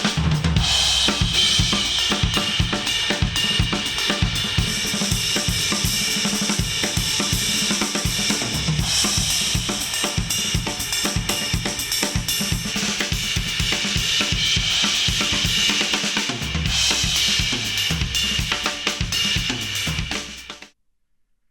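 Drum-heavy instrumental music, with kick drum, snare, hi-hat and cymbals prominent, played through studio reference headphones and recorded at an artificial ear. It cuts off suddenly near the end.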